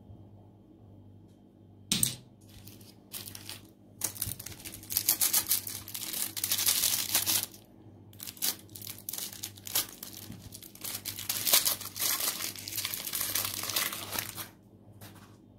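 Clear plastic cellophane wrapper crinkling and tearing in uneven spurts as it is pulled off a swirl lollipop, after a single sharp click about two seconds in; the crinkling stops near the end.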